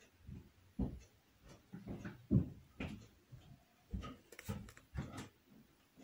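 A string of soft, irregular taps and light clicks, about one or two a second with a quicker cluster in the second half, as red dye powder is tapped out of a small plastic pot and worked with a knife over a steel pan of wet fibre.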